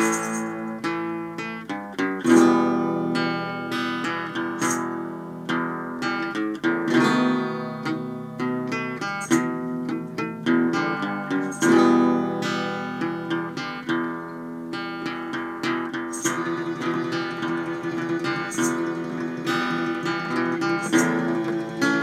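Spaghetti-western style guitar music: plucked and strummed acoustic guitar with ringing notes, and a sharp high percussive tap every couple of seconds.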